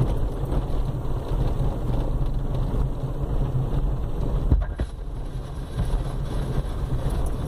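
Steady low rumble of a moving vehicle with road noise and wind on the microphone, and a single knock about four and a half seconds in.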